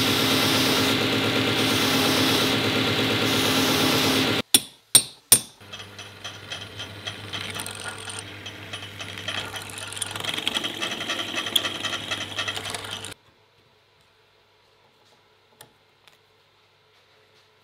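A belt grinder sanding a small steel ring, steady and loud. Three sharp knocks follow, then a drill press runs with a steady hum while its bit rattles through a steel tube. It cuts off abruptly to near silence, with a faint click as small metal parts are handled.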